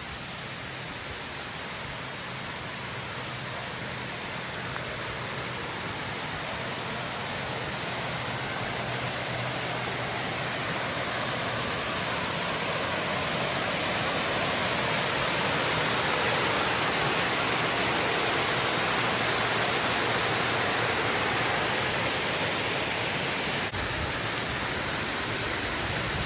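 Waterfall: a steady rush of falling water that grows louder over the first half and then holds.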